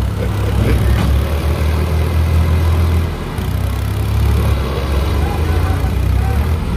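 Diesel tractor engines running with a loud, low rumble, with people in a crowd talking over it.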